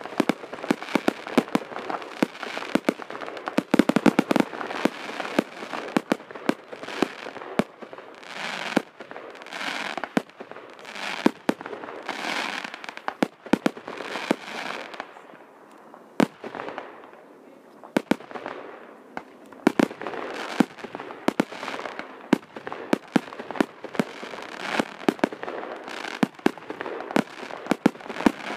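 Fireworks going off in quick succession: many sharp bangs and crackles, with hissing swells in between and a short lull about halfway through.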